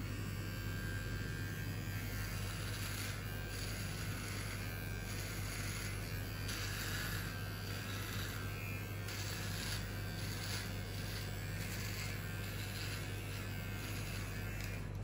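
Electric hair clipper running with a steady low buzz. A higher, hissing layer on top swells and fades in patches as the blades pass over the head.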